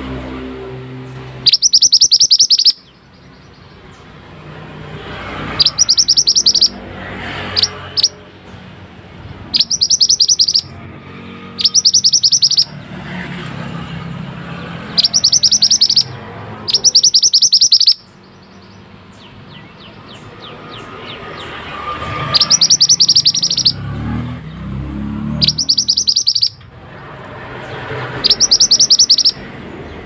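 Mountain minivet (mantenan gunung) singing: about ten short, high trills, each a rapid string of notes lasting about a second, repeated every two to four seconds.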